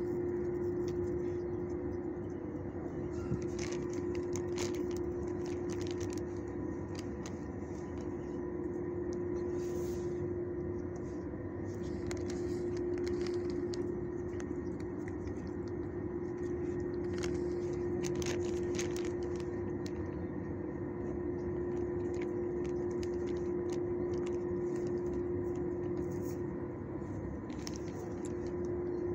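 A steady machine-like hum holding one constant tone, with short crinkles and rustles now and then from a clear plastic zip-top treat bag being handled.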